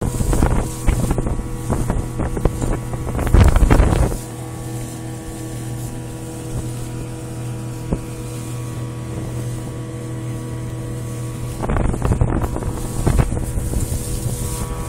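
Mercury 115 hp 'Tower of Power' inline-six two-stroke outboard running at a steady speed. Wind buffets the microphone for the first four seconds and again near the end.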